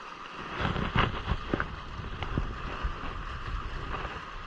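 Water splashing and lapping against the hulls of a Hobie Cat sailing catamaran moving slowly in light wind, with wind on the microphone. There are a few sharp knocks in the first second and a half.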